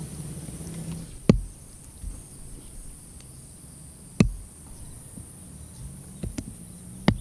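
Insects chirring steadily, with three sharp knocks about three seconds apart and a few fainter taps as hand tools strike the soil while digging.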